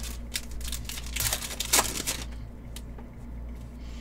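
Trading cards being handled and flipped: a run of short cardboard slides, flicks and taps, busiest and loudest in the first two seconds, then a few faint ticks.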